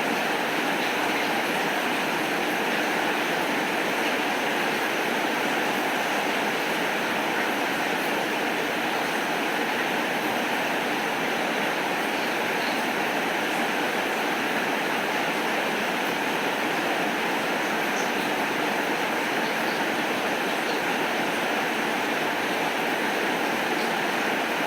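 Heavy rain falling, a steady, even hiss with no thunder.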